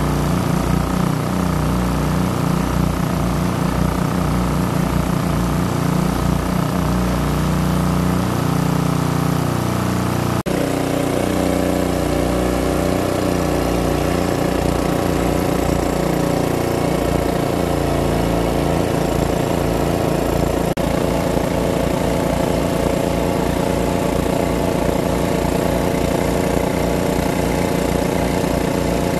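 Small petrol engine driving a large-capacity water pump, running steadily throughout. Its tone changes abruptly about ten and about twenty-one seconds in.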